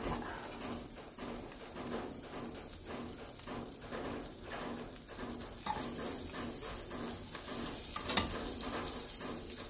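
Butter sizzling as it melts in a hot kadai, the sizzle growing stronger about halfway through. A spatula clicks once against the pan near the end.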